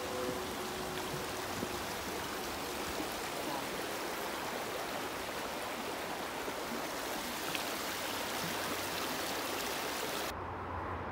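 Steady rushing of a flowing stream, an even hiss with no rhythm. About ten seconds in it changes abruptly to a duller, lower sound.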